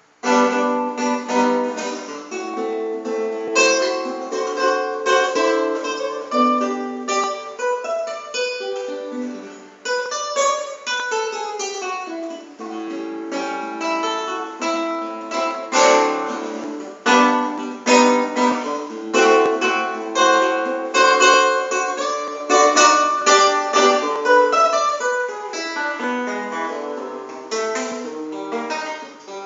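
Guitar playing an instrumental tune in quick runs of plucked notes, with a descending run about ten seconds in. It starts right after a moment of near silence.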